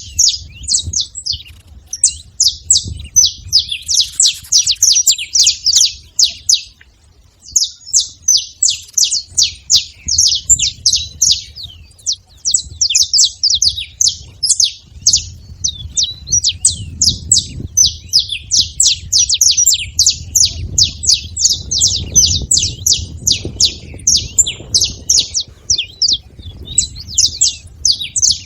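Saffron finch (canário-da-terra) singing and calling: long runs of rapid, sharp chirps, several a second, broken by short pauses about seven and twelve seconds in.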